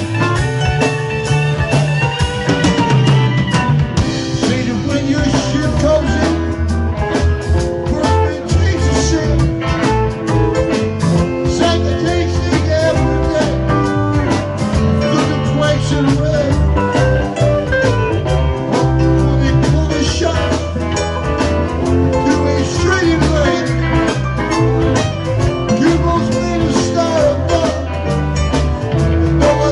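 Live rock band playing loudly and without a break: electric guitars, electric bass, drum kit and keyboard, in a bluesy, psychedelic jam.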